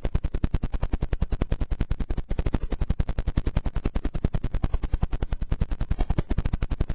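Four 18-inch Fi Car Audio BTL subwoofers, driven by four Rockford Fosgate T4000.1bd amplifiers, playing a loud, rapidly pulsing bass beat of about ten hits a second, heard from inside the vehicle's cabin.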